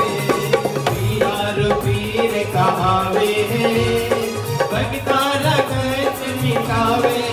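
Live Marwari devotional bhajan music: a hand drum keeps a steady rhythm under a melody line, with no break.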